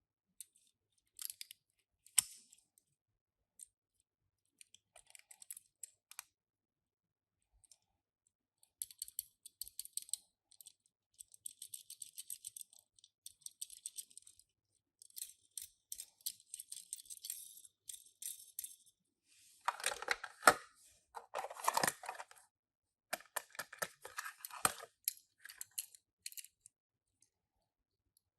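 Small handling noises of die-cast Tomica miniature cars and their packaging: scattered clicks, rattles and crinkling, in short clusters, growing louder and denser about two-thirds of the way through.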